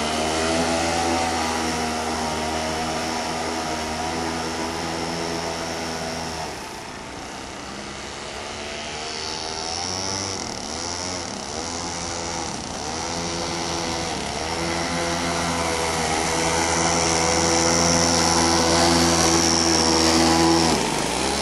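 25cc weed-trimmer two-stroke engine driving a homemade model boat at speed. It grows fainter and wavers in pitch as the boat runs away, then gets louder as the boat comes close, with a brief dip in pitch near the end. The owner feels it still needs more RPM.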